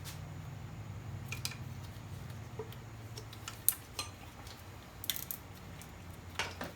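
Scattered light metallic clicks and clinks of hand work in an engine bay as the alternator is slid back and the drive belt is worked off its pulleys, the sharpest click about halfway through. A faint steady low hum sits underneath.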